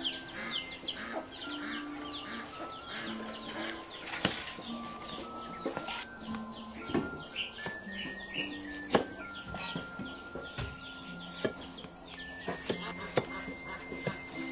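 Chinese cleaver knocking now and then through carrot onto a wooden chopping block, with the loudest knocks about halfway through. Behind it run a steady high whine, rapid short chirps and soft background music.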